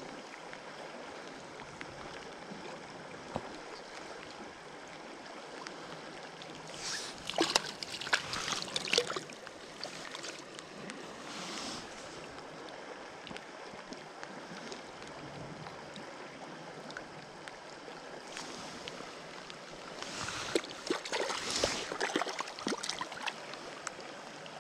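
Small creek running steadily, with two bouts of close rustling and clicking, about seven seconds in and again about twenty seconds in, from hands unhooking a small trout.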